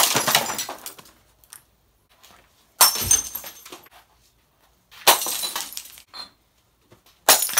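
Glass being smashed: four loud crashes about two and a half seconds apart, each followed by fading rattle and ringing of breaking shards.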